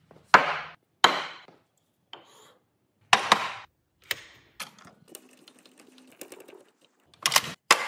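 Sharp knocks and clacks, each dying away quickly: two about a second apart near the start, a double knock around three seconds in, lighter scattered clicking in the middle, and a quick cluster of knocks near the end.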